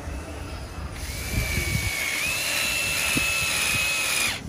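Power drill-driver with a long bit driving a bolt through a metal bracket into a wooden leg: a steady motor whine starts about a second in, steps up slightly in pitch partway through, and stops abruptly near the end.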